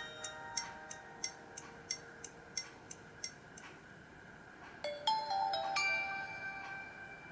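Nokia C3-01 built-in ringtone: a synthesized tune whose ticking beat, about three ticks a second, fades out over the first few seconds. A new phrase of bright chiming notes comes in about five seconds in, holds, and dies away near the end.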